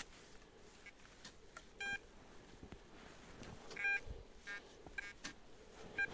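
Metal detector giving short electronic beeps as it is passed over a target in the dug hole. There are two clear beeps about two seconds apart and a few fainter chirps near the end, with faint clicks and scraping of soil between them.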